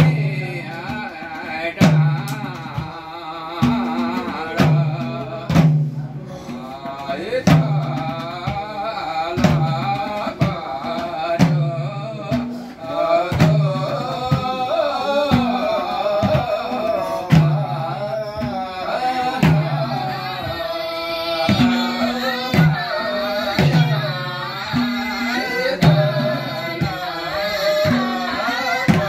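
Madal hand drums played in a steady repeating rhythm of deep, booming strokes and sharp slaps, with a group of men and women singing a chant-like song over them.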